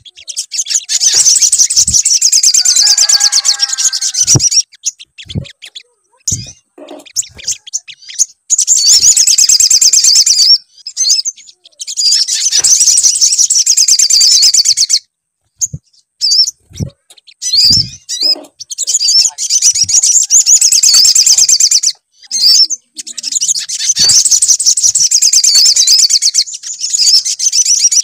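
Sogon (sogok ontong sunbird) song played as a lure call to set a kept bird singing: long bursts of rapid, high-pitched twittering, each a few seconds long with short pauses between, and scattered soft low knocks.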